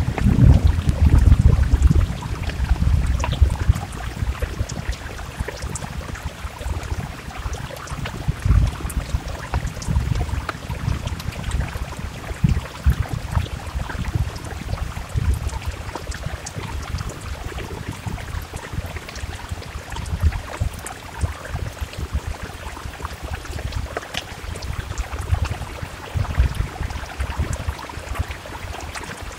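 Steady rain against a window, a dense hiss full of small drop ticks. Low rumbling swells rise under it, strongest in the first few seconds and returning now and then.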